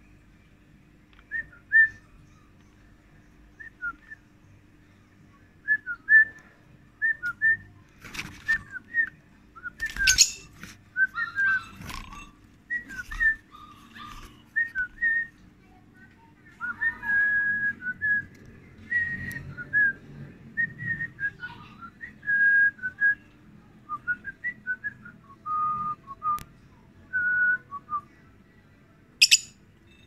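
An irregular series of short, clear whistled notes, a few of them held for about a second, broken by three brief harsh shrieks.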